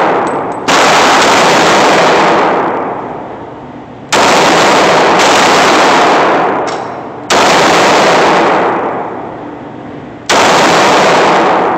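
Glock pistol fired in slow single shots, four loud shots about three seconds apart and a fifth just at the end, each dying away over a couple of seconds.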